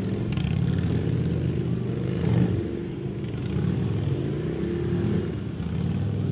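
Harley-Davidson police motorcycles' V-twin engines running at low speed, the throttle blipped up and down as the bikes are worked slowly through a tight cone course, rising briefly about two and a half seconds in and again near five seconds.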